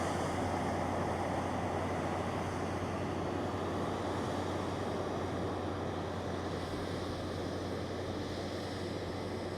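John Deere X9 1100 combine harvester running steadily, a constant low engine hum under a broad, even noise.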